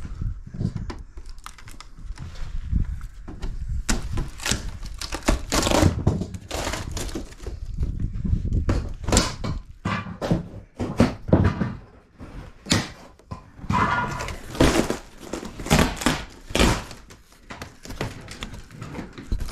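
Irregular thumps, knocks and crunching as rotted wood and a wooden panel are pried and pulled loose by hand.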